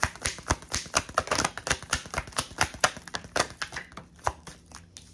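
A deck of oracle cards being shuffled by hand: a quick run of card flicks and slaps, several a second, which thins out and stops near the end.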